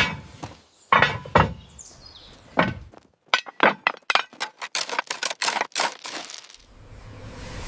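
Tools striking and clinking on metal: a few separate knocks, then a quickening run of sharp taps and clinks. Near the end a spraying hiss starts and grows louder.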